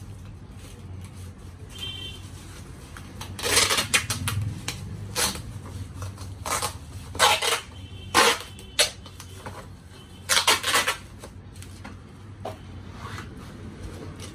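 Clear packing tape pulled off its roll in a series of short rips, with a black plastic bag crinkling as a parcel is wrapped and sealed.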